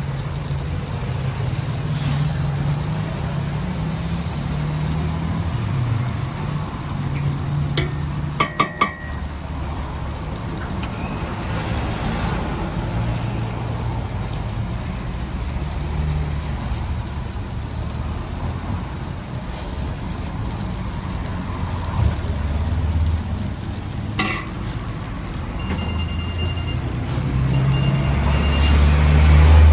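Doner wraps heating on a flat griddle with a light sizzle, over a steady low rumble of road traffic. There is a brief metallic clatter about eight seconds in and a few short electronic beeps near the end.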